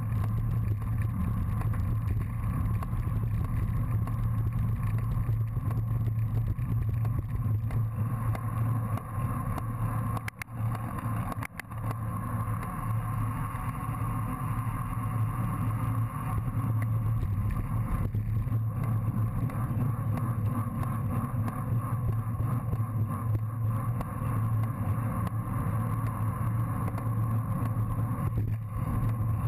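Steady muffled rumble of wind and road noise on a bicycle-mounted action camera riding at race speed, briefly broken twice about ten seconds in.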